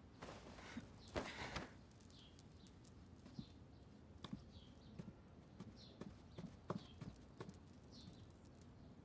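Faint footsteps on a wooden floor: a string of light, irregular knocks, after a brief rustle about a second in. Small bird chirps repeat faintly behind them.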